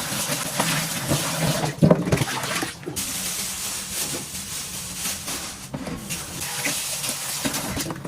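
Water running from a tap into a sink, with a few brief breaks in the flow.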